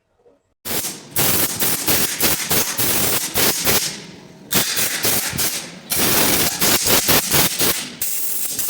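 Loud rushing blast of air with rapid crackling, easing off briefly about four seconds in and then starting again, typical of compressed air blown through a clogged robot-vacuum filter.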